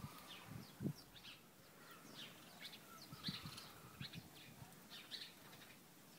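Faint chirping of a small flock of birds: short, high calls repeated over and over. A couple of soft low thumps come about a second in.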